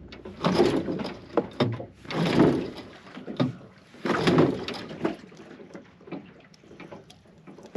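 A Yamaha 8 hp outboard motor being pull-started: three hard pulls on the recoil starter cord about two seconds apart, each a short rasping whirr of the rope and the engine turning over. The engine does not catch.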